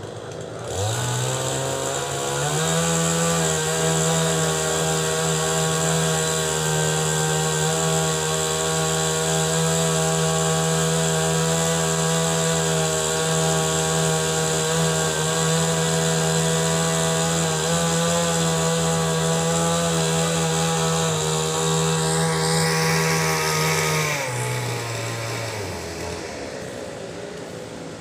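A small engine or motor speeds up about a second in, runs steadily at one pitch, then winds down and fades near the end, with a high hiss alongside.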